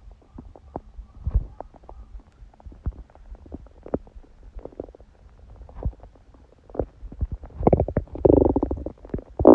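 A woman's stomach gurgling and growling during her period: many small scattered pops and bubbling gurgles, then a longer, louder pitched growl from about eight seconds in.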